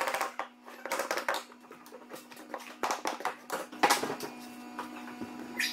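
Wooden flooring planks and a wooden block being handled and set down, with scattered knocks and clatter: light mallet taps on the planks at the start and a louder knock of the block landing on the boards near four seconds in.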